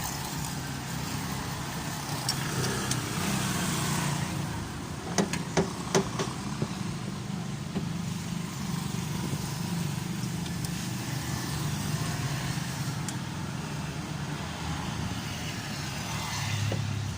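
An engine running steadily, with a few sharp metallic clinks about five to six seconds in.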